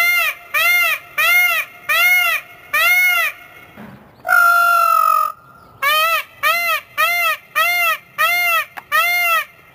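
Male Indian peafowl (blue peacock) giving a run of short honking calls, about one and a half a second, each rising and falling in pitch. About halfway through comes one longer, nearly level call lasting about a second, and then the run of honks starts again.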